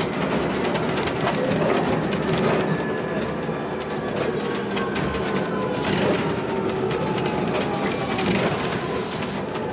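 Inside a moving city bus: steady engine and road noise with rattling from the cabin, and a faint whine that slowly falls in pitch over several seconds.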